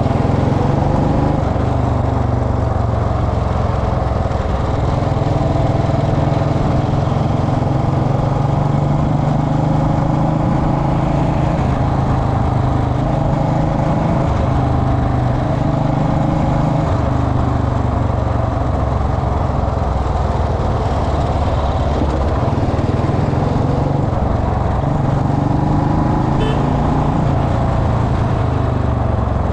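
Royal Enfield Bullet Electra's single-cylinder engine running on the move, its note stepping up and down every few seconds with the throttle.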